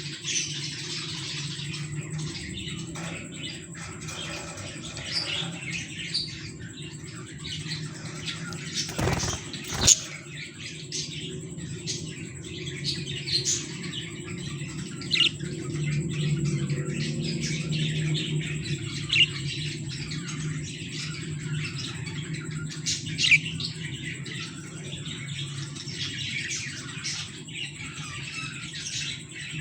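Breeding pair of budgerigars chirping and chattering in quick, high, short chirps, over a steady low hum. A sharp knock sounds about a third of the way through.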